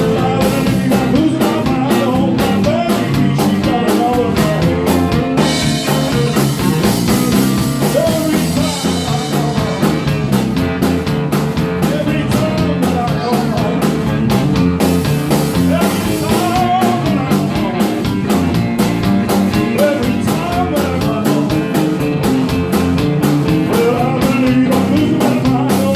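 A blues-rock band playing live, with a driving drum beat, electric guitar and a voice singing at times; a cymbal wash runs through a stretch a few seconds in.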